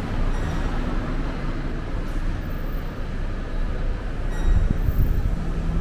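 Strong gusty wind buffeting the microphone: an uneven low rumble that swells and falls, growing stronger about four seconds in.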